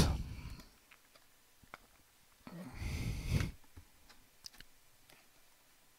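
A few faint, scattered computer clicks from a mouse or keyboard in a quiet small room, with one short breathy noise about three seconds in.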